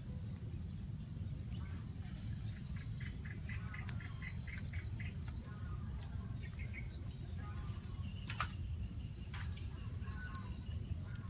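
Birds chirping on and off, including a quick run of repeated chirps a few seconds in, over a steady low rumble. A few sharp clicks stand out near the middle and toward the end.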